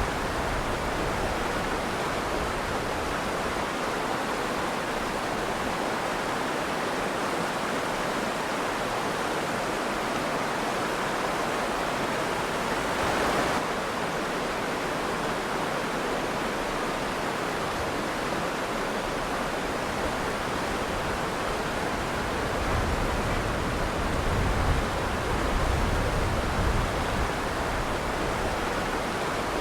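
River water flowing and rushing steadily, with brief low swells in the rush a little after the middle and again later.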